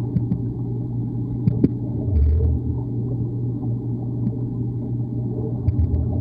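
Swimming pool heard underwater: a steady low rumble and hum, with scattered faint clicks and knocks from swimmers moving in the water. A louder dull thump with a brief hiss comes about two seconds in.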